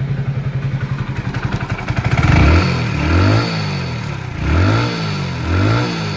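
Hero Splendor Plus BS6 motorcycle's single-cylinder four-stroke engine idling, then revved four times in short blips that rise and fall. The engine is making the loud rattling noise it was brought in for, which the mechanic checks first as a slack timing chain.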